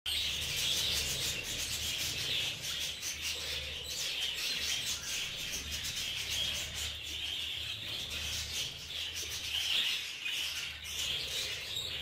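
Budgerigars chattering without pause, with many small clicks of beaks pecking at sidr (nabq) fruits in a metal tray; a low rumble comes and goes underneath.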